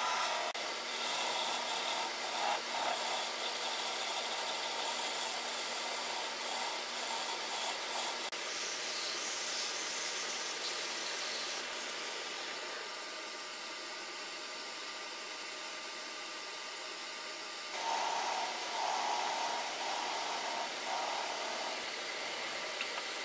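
Small lathe motor running steadily while a wooden chisel handle spins in it. A hand-held turning tool scrapes and cuts the wood for the first several seconds and again from about three-quarters of the way through, with quieter sanding of the spinning handle in between.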